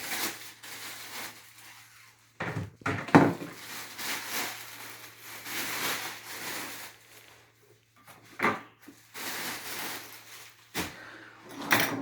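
Packaging being pulled off and moved aside: rustling of plastic and cardboard, broken by several sharp knocks as pieces are handled and set down.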